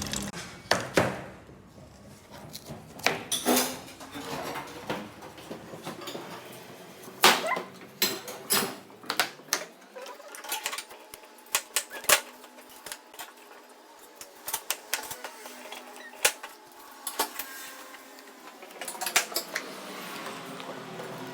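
Close-up mukbang eating sounds: irregular sharp clicks and crunches of biting and chewing sour fruit, some louder than others, with no steady background.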